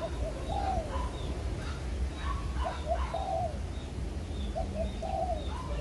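Spotted dove cooing: three short rolling coo phrases, about two seconds apart.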